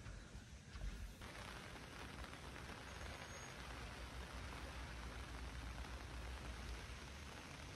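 Steady hiss of rain falling, starting abruptly about a second in, over a low rumble.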